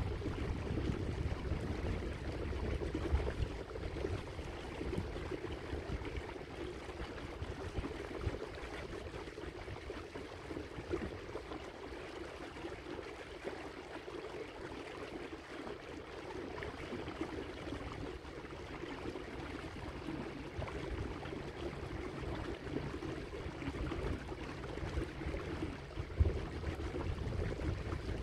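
Water lapping and gurgling along the hull of a small electric boat moving slowly over a choppy lake. A low rumble of wind on the microphone is stronger at the start and near the end, and there is a single thump a couple of seconds before the end.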